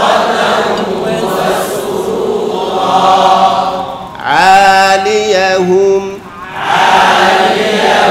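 A group of voices chanting a line of Quran recitation together. About four seconds in, a single man's voice recites a melodic phrase alone for about two seconds, and then the group chants again.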